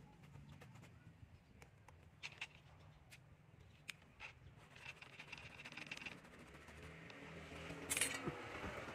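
Scattered light clicks and scraping from a bamboo fishing rod being worked by hand, with a louder, brief rustling scrape near the end.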